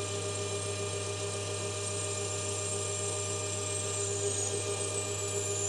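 Lathe parting off a steel bushing with a 2 mm parting tool: a steady high-pitched cutting whine over the lathe's running hum, sliding slightly lower in pitch near the end as the cut goes deeper.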